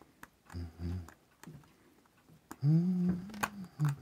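Light clicks of a steel tool against a Seiko 7A28 watch case as it is worked at, with a man's short low mumble near the start and, from just after halfway, a louder drawn-out wordless hum of effort.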